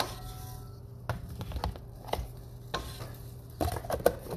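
Wooden spatula knocking and scraping irregularly in a nonstick frying pan as a pat of butter melts and sizzles faintly, with a cluster of quick knocks near the end.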